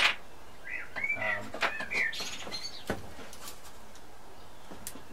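A bird chirping a quick run of short rising-and-falling notes about a second in. There is a sharp click at the very start and another about three seconds in.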